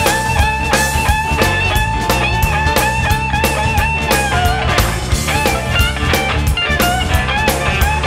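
Background music: an instrumental stretch of a song, a guitar lead over a steady drum beat, with no singing.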